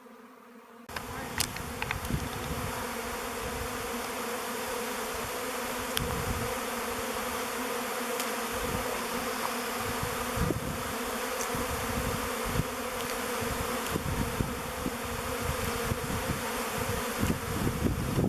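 A good-sized honeybee swarm buzzing in a dense, steady hum that starts abruptly about a second in, with occasional low thumps.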